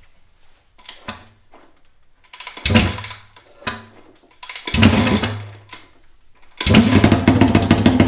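2017 Honda CRF450R's single-cylinder four-stroke engine being started with its mufflers removed: a few short sputtering attempts, then it catches near the end and runs very loud with rapid exhaust pulses. The rider calls the open-exhaust sound awful and unbearable.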